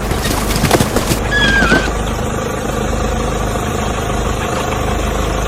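A steady low engine rumble, like an idling vehicle, with a few knocks in the first second and a short whistled call that dips in pitch about a second and a half in.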